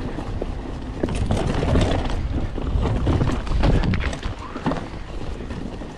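Mountain bike ridden fast down a rough woodland trail: tyres on dirt and the bike rattling and clattering over roots and logs, with a steady low rumble underneath.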